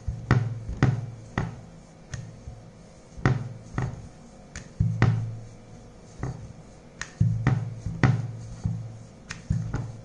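Wooden rolling pin being rolled back and forth over stiff dough on a marble board: irregular low rumbling strokes, each with sharp knocks and clicks against the stone.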